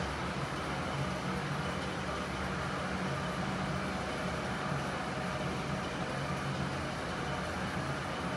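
Steady whirring hum of an elliptical trainer being pedalled, with a constant low drone under a wide hiss.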